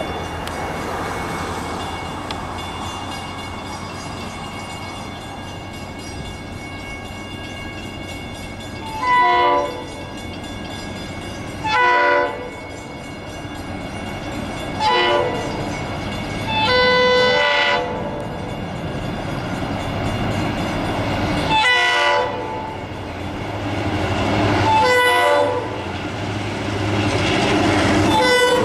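An approaching New York & Atlantic EMD GP38-2 diesel freight locomotive sounds its several-note air horn in about seven blasts, most short and one longer in the middle. Under the horn, the locomotive's diesel engine rumble grows louder as the train nears.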